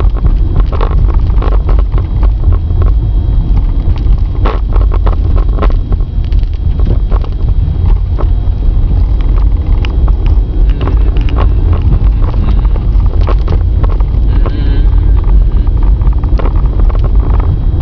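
Low, steady rumble of a car driving, heard from inside the cabin, with frequent sharp clicks and rattles.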